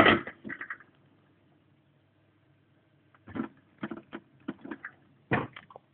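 Metal clunks and a quick run of short clicks and knocks as the portafilter of an E61 espresso machine is handled and fitted into the group head. A loud knock comes at the start, then a pause, then about a dozen sharp clicks over the last two and a half seconds.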